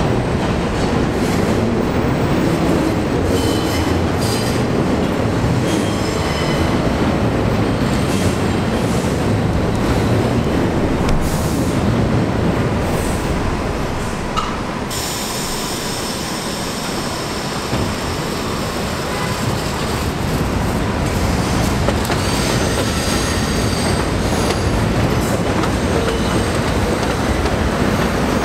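New York City Subway train of R32 and R42 cars running on a curved elevated steel flyover: a steady rumble of wheels on the structure, with thin wheel squeal from the curve coming and going and some clicks over rail joints.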